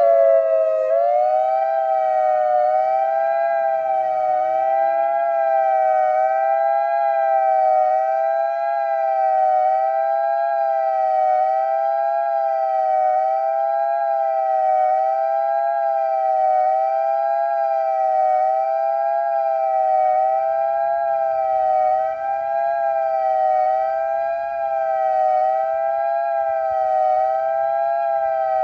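Whelen WPS-2740 electronic outdoor warning siren sounding a steady dual-tone alert signal, two notes together wavering gently in pitch about every second and a quarter. It is still finishing its rise at the start and begins to slide down in pitch near the end.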